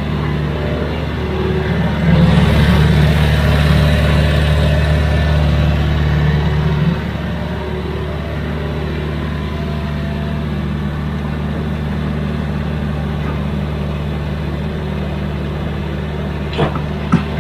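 Excavator diesel engine running steadily, growing louder with a hiss for about five seconds from about two seconds in, then settling back to an even run. A couple of short knocks near the end.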